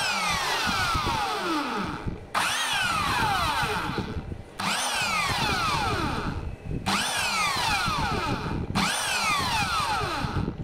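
Ingco electric impact wrench (1/2-inch square drive) run free in short bursts, about five in a row. Each starts suddenly with a high motor whine that falls steadily in pitch before the next pull of the trigger. The wrench is being test-run after repair.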